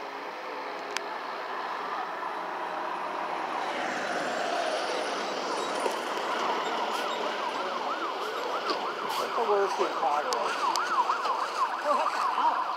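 Emergency vehicle siren, first a slow wail and then a fast yelp wavering about three times a second, growing louder as it approaches.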